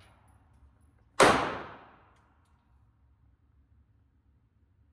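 A single semi-automatic pistol shot about a second in, a sharp crack that echoes and dies away over about a second.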